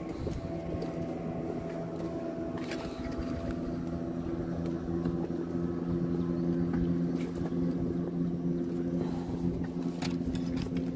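An engine running at a steady speed, a low even hum that grows a little louder about six seconds in, with a few short clicks.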